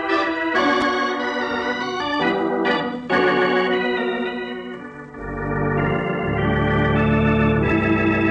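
Organ music bridge marking a change of scene: held organ chords that shift every couple of seconds, with deep bass notes coming in about five seconds in.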